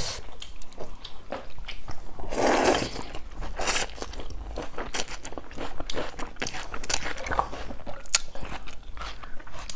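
A person slurping and chewing rice noodles close to a clip-on microphone: one long slurp about two and a half seconds in, a shorter one soon after, and wet chewing with many small mouth clicks throughout.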